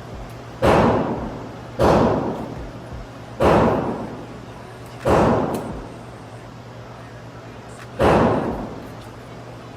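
Five gunshots at an indoor shooting range, irregularly spaced, each followed by a reverberating tail that dies away within about a second.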